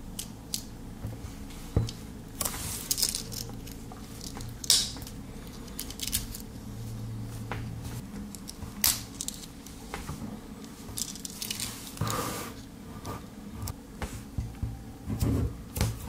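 Swiss Army Knife can-opener blade cutting a tin can's lid around its rim: irregular metal clicks and short scraping, tearing strokes, a few of them louder.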